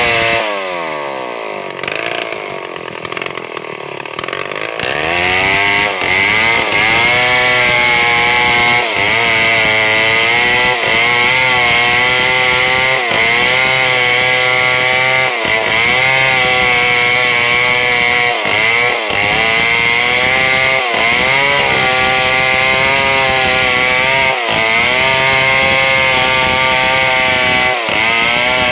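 Chainsaw engine running at high revs while cutting into a large log. Near the start the engine note falls away and runs slower and quieter for a few seconds, then revs back up and holds, dipping briefly every two seconds or so as the chain is pushed into the wood.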